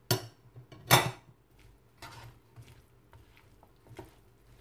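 Two sharp knocks against a nonstick wok about a second apart, then lighter scrapes and clicks as a slotted spatula stirs chicken and sliced vegetables in the pan.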